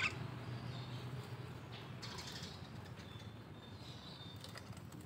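Quiet clicks and creaks of a bamboo birdcage as live crickets are hand-fed to a caged Javan myna, starting with one sharp click.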